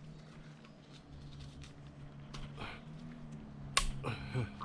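Light metallic clicks and taps of an engine part being worked by hand as it is slid off the block, over a steady low hum, with one sharp metal click near the end.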